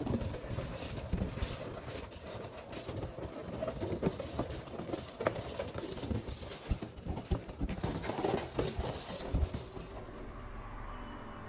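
Latex balloons being handled and fixed into a balloon garland: rubbing and rustling, with irregular light knocks as the balloons bump together and against the wooden floor.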